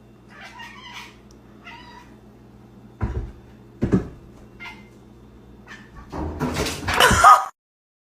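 A cat meowing several times in short calls, with two sharp thumps midway. A louder burst of sound near the end cuts off suddenly.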